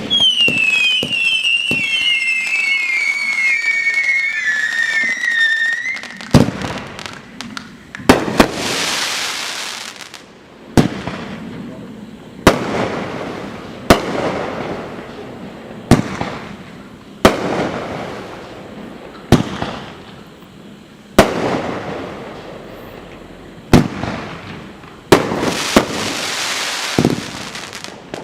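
Consumer fireworks cake firing: for the first six seconds several whistles sound together, each falling in pitch in steps. Then comes a string of about a dozen sharp shots, one every two seconds or so, each followed by a fading hiss and crackle as the effects burst.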